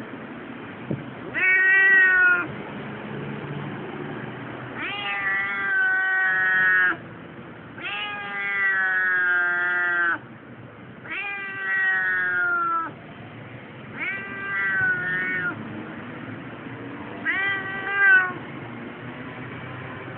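Siamese cat yowling in protest from inside a pet carrier: six long, drawn-out meows, each one to two seconds long and a few seconds apart, several sliding slightly down in pitch, over a steady low background hum.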